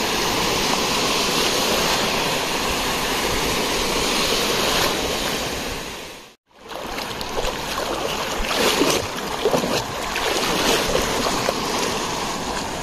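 Sea waves washing onto the beach in a steady rush. It dips to a moment of silence just past halfway, then comes back with a few louder moments.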